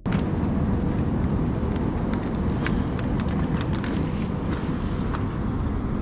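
Wind noise buffeting an outdoor body-worn camera microphone, heaviest in the low end, with a few sharp clicks from hands handling a camera and lens filter on a tripod. The sound cuts in suddenly.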